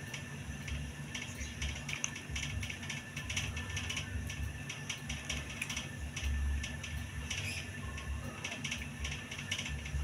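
Small stones clicking and tapping irregularly as they are handled and set down on cardboard, over a steady low hum.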